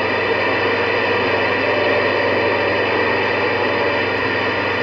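CB radio receiver hissing with static between transmissions, with a low hum under it. A faint steady tone comes in a little before halfway through.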